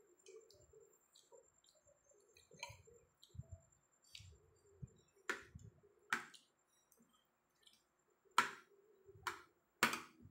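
Metal fork and spoon clinking and scraping against a ceramic plate of rice, with a few sharp clicks in the second half, the loudest about eight and ten seconds in. Soft wet chewing and mouth sounds in between.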